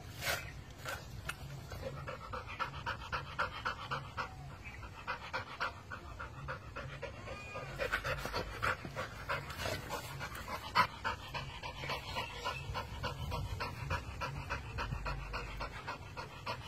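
A dog panting in quick, even breaths, about three a second, while it tears at a coconut's dry husk fibres with its teeth.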